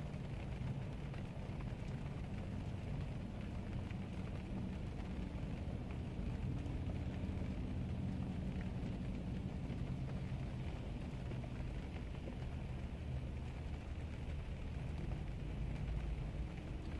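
Steady rain with a low, steady vehicle rumble underneath.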